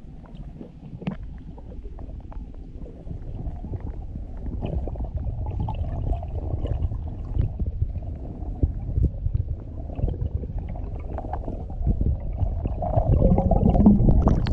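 Muffled low rumble and gurgle of water heard through an underwater camera housing, with scattered small knocks. It grows louder near the end, with bubbling as the diver nears the surface.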